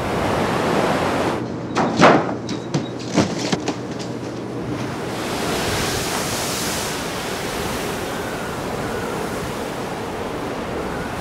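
Rough sea running against a ship in heavy weather: a steady wash of water and wind. A quick run of sharp knocks and slaps comes about two seconds in, and a rising hiss of spray about halfway through.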